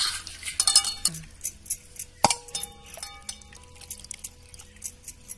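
Metal bowls and glass bangles clinking and knocking as wet fish pieces are lifted from the washing bowl and set into a steel plate. The loudest knock, about two seconds in, leaves the dish ringing.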